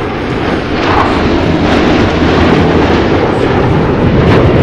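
Jet roar of the Thunderbirds' four F-16 fighters flying past in tight diamond formation, building slightly in loudness.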